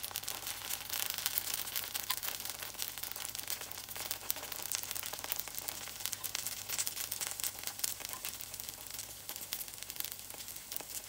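Dosa batter frying in hot oil in the wells of a kuzhi paniyaram pan: a steady hiss with fine crackles.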